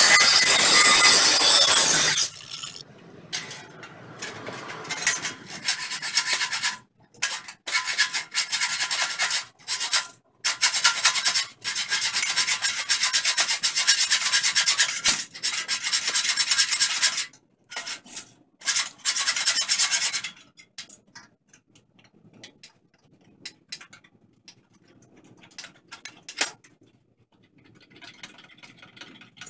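An angle grinder cuts through the rusted steel of a truck cab mount bracket and stops about two seconds in. Irregular strokes of a hand file rasping on the steel bracket follow. Near the end there are scattered quieter clinks of metal parts being handled and clamped.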